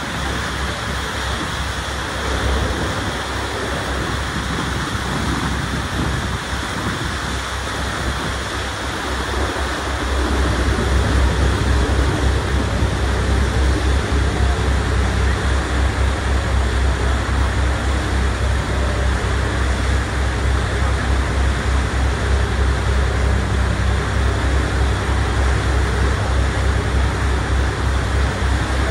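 Steady rush of wind and water aboard a passenger ferry under way. A deep rumble comes up and grows louder about ten seconds in.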